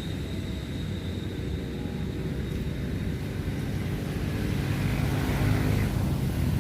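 An engine running steadily, a low hum that grows a little louder toward the end.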